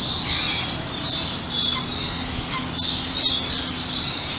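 A flock of Chilean and Caribbean flamingos calling over one another: a continuous, noisy chatter that swells and fades.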